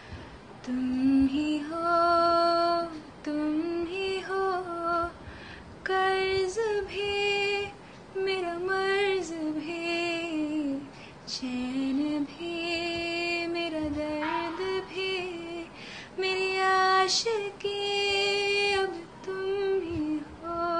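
A young woman singing unaccompanied. She holds and bends the notes in phrases of one to two seconds, with short breaks for breath between them.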